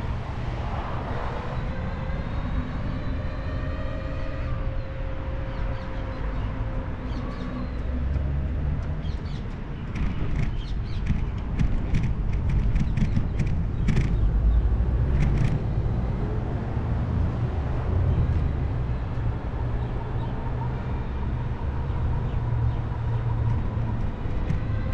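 Fiido electric scooter on the move: a heavy rumble of wind and road noise on the microphone, with the stock 250-watt hub motor's faint whine rising in pitch over the first few seconds as it picks up speed on its upgraded 350-watt controller. A run of sharp knocks and rattles comes near the middle.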